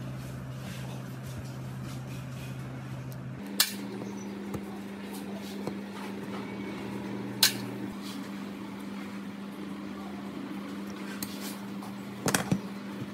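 Screwdriver work on the switch terminals of an old angle grinder: a few sharp metal clicks and taps, once about three and a half seconds in, once near the middle and a quick cluster near the end, over a steady low hum.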